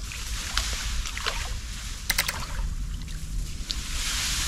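Water sloshing and splashing as a submerged turtle trap is hauled up out of the river, with a few sharp clicks from the trap a little past two seconds in.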